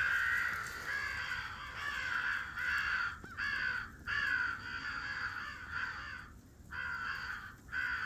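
Crows cawing continuously, many harsh caws overlapping, with a few brief pauses.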